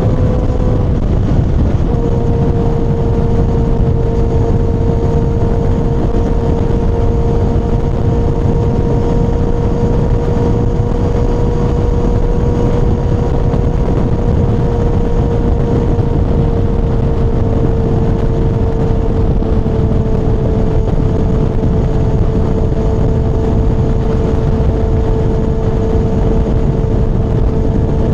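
Kawasaki ZX-6R inline-four sport-bike engine running steadily while cruising, heard from the rider's seat over a dense rush of wind and road noise. The engine note breaks off briefly about a second in, then holds steady, sinking slightly toward the end.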